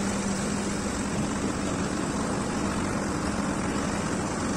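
Farm tractor's diesel engine running at a steady speed while driving, a constant low hum that holds one pitch throughout, heard close from the driver's seat.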